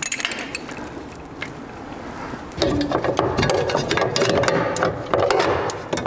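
Quiet handling noise, then from about two and a half seconds in a louder, rapid run of mechanical clicking and rattling from hand work on the car's parts and wiring.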